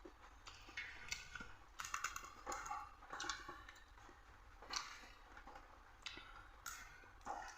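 A person eating rice and dal: soft, wet chewing and mouth clicks come in irregular bursts about once a second.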